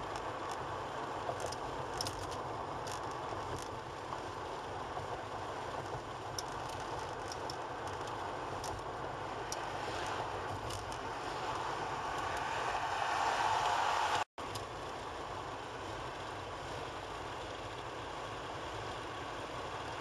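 Car driving on a cleared road, heard from inside: a steady hiss of tyre and engine noise with light clicks and rattles. It grows louder for a couple of seconds, cuts out for a moment about fourteen seconds in, and then carries on steadily.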